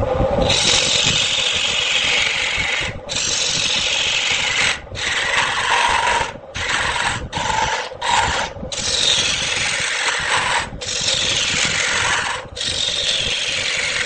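A turning tool cutting into wood spinning on a lathe, in a series of scraping passes one to two seconds long with short breaks as the tool lifts off.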